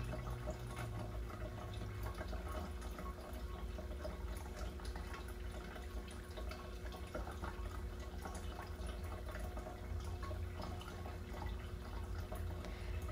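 Quiet room tone: a steady low hum with faint scattered ticks.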